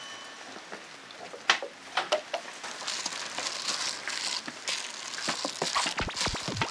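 Kitchen knife chopping zucchini on a wooden cutting board: scattered knocks, with a soft rustling hiss in the middle and a quick run of knocks near the end.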